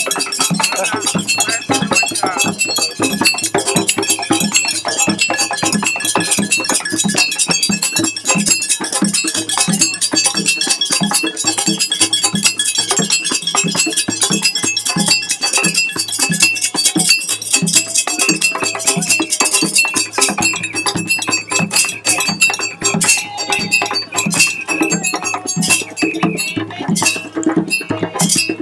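West African hand-drum ensemble playing a steady, driving rhythm on small skin drums, with a ringing metal percussion part over the drums.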